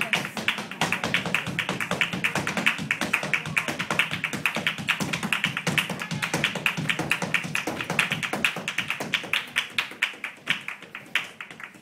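Flamenco footwork: a rapid, continuous run of sharp heel-and-toe taps over flamenco music, easing off a little near the end.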